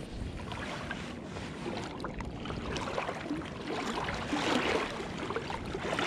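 River water sloshing and swirling around a wading angler's legs, getting louder toward the end.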